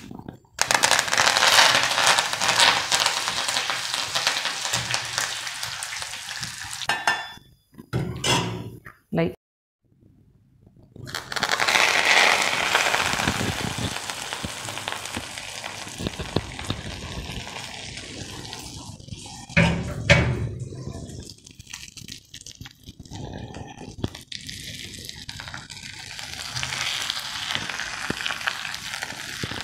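Mustard seeds, urad dal, cumin, cashews and curry leaves sizzling and spluttering in hot oil in an iron kadai, stirred with a metal slotted spatula. After a short break, the hot tempering is scraped from the kadai onto cooked rice, with a sharp metal knock about twenty seconds in, and then a spoon stirs it into the rice.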